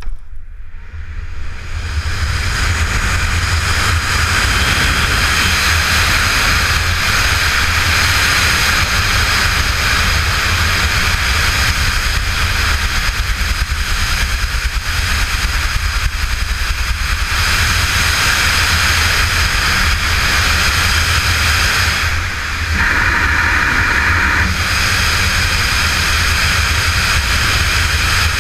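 Wind roaring over the camera's microphone in wingsuit flight: it builds over the first couple of seconds as the jumper picks up speed after leaving the cliff, then holds as a steady loud rush with a deep rumble underneath. The hiss shifts in tone for a couple of seconds about two thirds of the way through.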